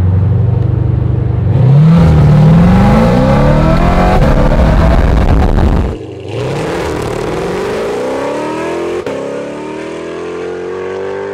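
Straight-piped C7 Corvette ZR1's supercharged 6.2-liter V8, heard from inside the cabin, held at steady revs against the brake and then launched hard. The pitch climbs through first gear, dips briefly at an upshift about six seconds in, then climbs again more slowly.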